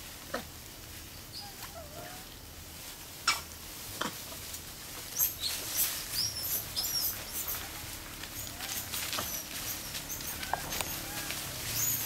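Animal calls: many short, high chirps from about five seconds in, with a few sharp clicks earlier, the loudest about three seconds in.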